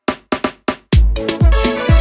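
Dance music intro: a few quick drum hits coming closer together, then about a second in a full beat comes in, with heavy bass kicks and keyboard.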